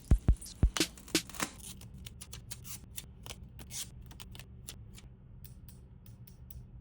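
Small objects being handled by hand. A few sharp knocks in the first second and a half are followed by a long, irregular run of light clicks and rustles, like PC parts and their packaging being picked over.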